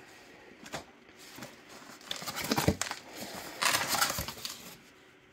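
Cardboard box flaps pulled open by hand, the cardboard scraping and rustling in several short bursts, with a light knock partway through.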